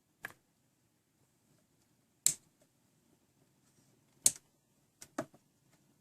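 Stacked automatic watch winder cubes running: sharp clicks about every two seconds, then two quick clicks close together near the end, over a faint low motor hum.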